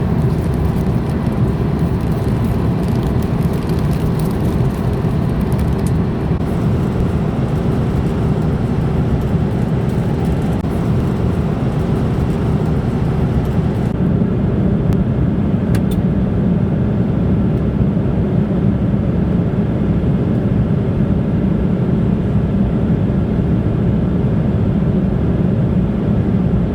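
Steady roar of an airliner's jet engines and rushing air, heard inside the passenger cabin during the climb after takeoff.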